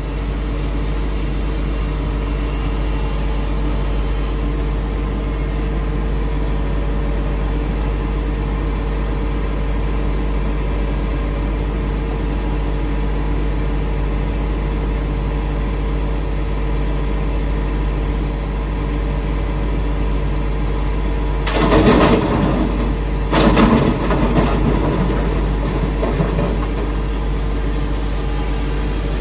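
Diesel engine of a Hitachi Zaxis 210F hydraulic excavator running steadily alongside an idling dump truck, a constant low hum. Past the middle come two louder rough crashing bursts, each a second or two long, as a bucketload of rock and earth is dumped into the truck's steel bed.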